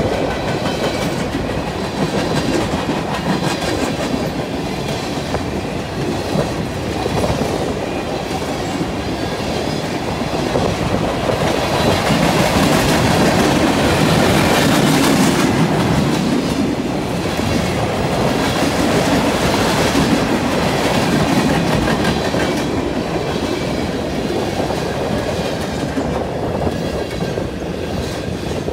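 Mixed freight cars of a passing freight train rolling by at track speed: steel wheels rumbling and rattling over the rails. The noise is steady, growing a little louder around the middle.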